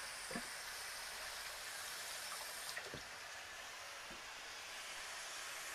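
Steady hiss of pots and a pan cooking on a stovetop, with a few faint knocks.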